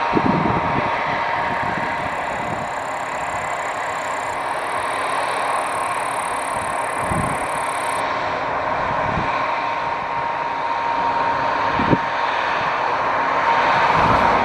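Case IH Axial Flow 8230 combine running while harvesting barley: a steady mechanical din with a constant high whine, and a few short knocks scattered through it.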